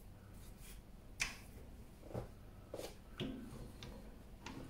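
A few light, separate clicks and knocks of metal lathe parts being handled on a mini lathe, the sharpest about a second in.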